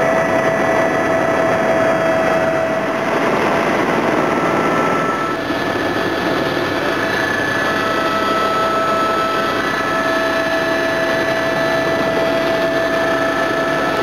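Helicopter in flight, heard from inside the cabin: a steady engine whine over loud rotor and air noise.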